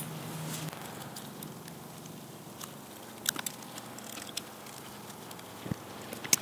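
Faint metallic clicks and ticks, a few scattered sharp ones in the middle and one near the end, from a small nut driver snugging up the nuts that hold the glow plug bus bar.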